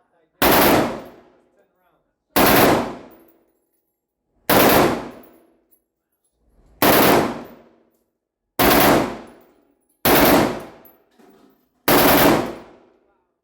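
Gun fired shot by shot in single-shot mode: seven loud individual shots, roughly every one and a half to two and a half seconds, each dying away with a short echo from the range.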